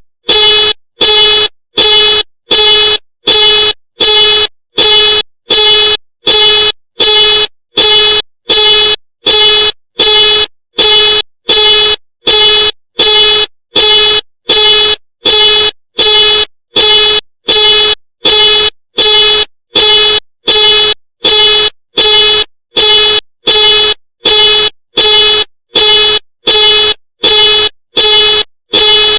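Ford car alarm sounding the car's horn in loud, evenly spaced honks, about three every two seconds, repeating without a break.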